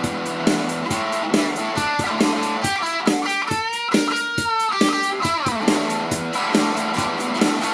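Squier Classic Vibe Telecaster with two single-coil pickups, played through a Fender Champion 50XL amp: a run of single notes with bends and vibrato in the middle, over a steady beat.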